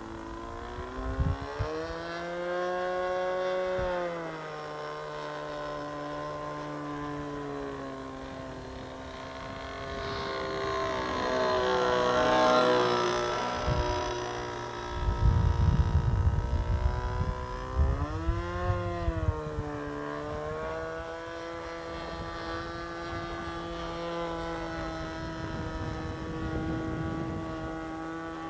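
Engine of an RC Phoenix Edge 540 aerobatic plane running through a can muffler in flight, its pitch rising and falling as the throttle changes and the plane manoeuvres. It is loudest on a close pass around the middle. Bursts of low rumble come near the start and just after the middle.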